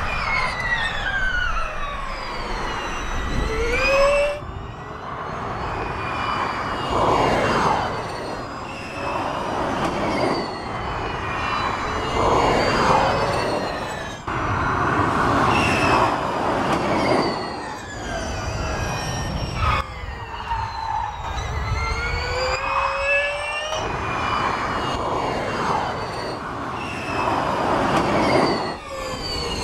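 Porsche 99X Electric Formula E car's electric drivetrain whining over tyre and wind noise, its pitch sweeping up under acceleration and down as it slows, again and again. The sound breaks off and jumps abruptly several times.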